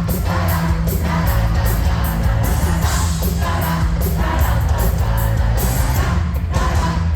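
Pop-rock band playing live through a concert PA, loud with heavy bass, with singing and a crowd yelling along, heard from within the audience.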